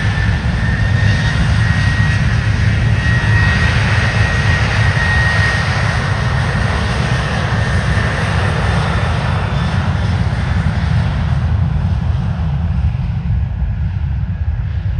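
Boeing 737-800's CFM56-7B turbofans at takeoff thrust on the takeoff roll: a deep rumble under a steady high fan whine. The whine fades after about six seconds, and the sound grows duller near the end as the jet speeds away down the runway.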